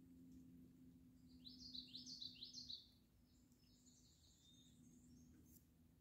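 A songbird singing a short phrase of about five quick rising whistled notes, followed by a few fainter high notes.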